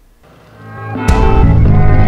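Background music fading in, then a sharp hit about a second in that opens into loud, full music with a steady bass line and melody.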